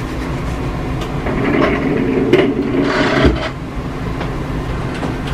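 Steady low hum of room ventilation, with about two seconds of rustling and scraping in the middle.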